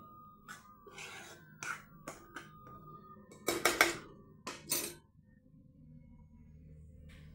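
A spatula scraping and stirring split lentils in a frying pan: a series of short rasping strokes, the loudest cluster about three and a half to five seconds in, after which it goes quiet with only a low hum.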